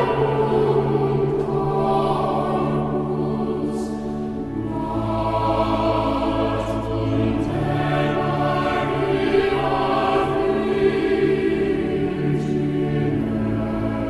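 Background choral music: a choir singing slow, held chords.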